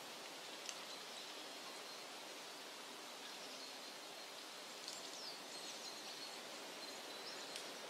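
Quiet woodland ambience: a faint steady hiss of the outdoors with a few short, high bird chirps about halfway through and again near the end.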